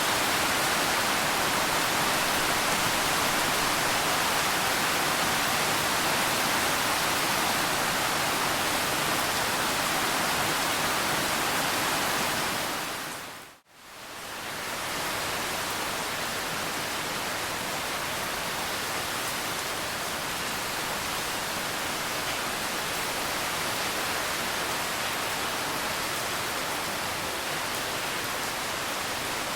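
Steady rain, an even hiss without distinct drops. About halfway through it fades out to a moment of silence and fades back in slightly quieter, like the join between two rain recordings.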